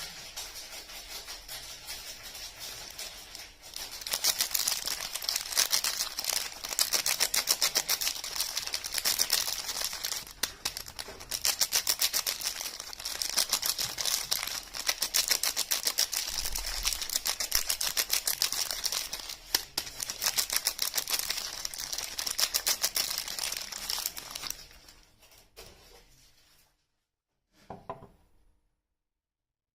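Soap wrapper being crinkled and torn open by hand: a soft rustle at first, then a dense run of rapid crackles that fades out near the end, with one last short rustle.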